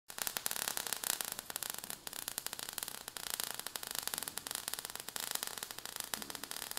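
Faint static hiss with dense, irregular crackling clicks: recording or line noise, with no machine sound standing out.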